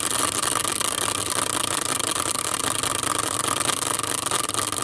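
Hand-spun prize wheel whirring steadily on its stand.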